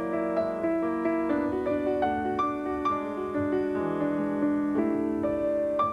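Piano music: a slow melody of struck notes over held chords.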